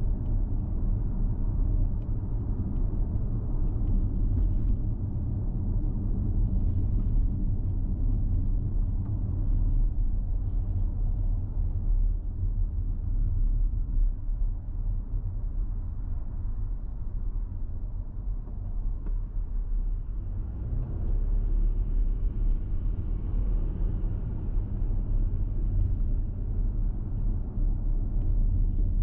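Steady low rumble of a car driving along an asphalt city street: tyre and engine noise, easing slightly midway and picking up again later.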